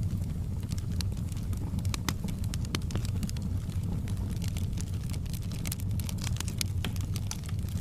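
Campfire crackling, with many irregular sharp pops and snaps over a steady low rumble.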